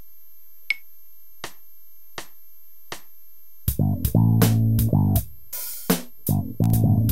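Four evenly spaced clicks of a drum-machine count-in, then a Warwick RockBass Streamer electric bass on freshly boiled strings comes in playing a riff over the drum machine's beat, through a Korg Pandora PX5D.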